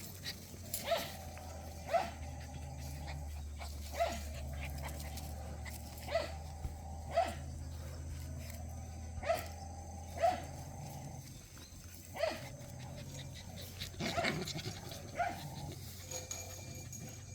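Jindo puppies barking in short, sharp yaps, about one every second or two, over a steady low hum.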